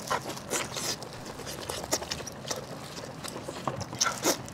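Close-miked eating sounds: wet, irregular clicks and smacks of a mouth chewing and sucking on a piece of spicy braised sheep offal.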